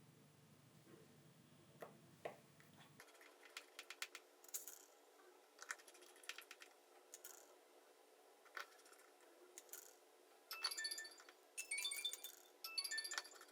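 Faint clicks and taps of small screws and a screwdriver on a phone's frame, followed from about ten seconds in by short clusters of light, bright chime-like tinkling.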